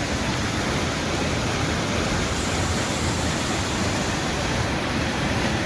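Waterfall: the steady, even rush of falling water, unbroken throughout.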